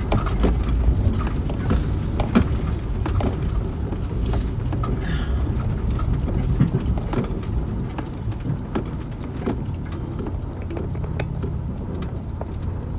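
Ford Transit van driving slowly over gravel and dirt: a steady low road rumble with scattered small clicks, rattles and knocks.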